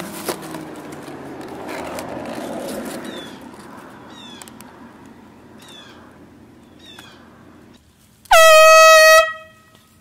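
Air horn blasting once near the end, a single loud held tone lasting about a second. Before it, rustling in the foliage and a few short, high, falling chirps.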